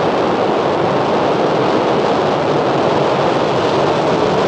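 Delta 3914 rocket climbing under full thrust, its first-stage RS-27 main engine and six solid strap-on boosters burning. The exhaust noise is a loud, steady rumble that holds level throughout.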